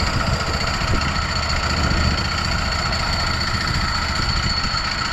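An engine running steadily at a constant speed, with a steady high-pitched whine over a low rumble.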